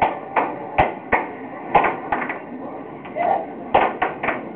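Air hockey puck clacking against plastic mallets and the table rails on a Photon air hockey table, about ten sharp hits at an uneven pace during a fast rally.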